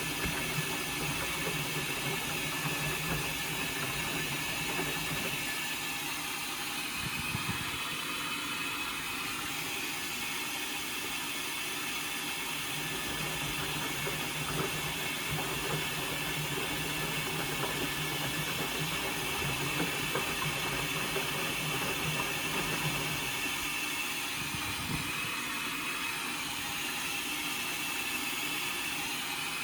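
Indesit washing machine tumbling a full load in its drum, the motor humming steadily over a constant hiss. The hum drops out briefly twice, as the drum pauses between turns.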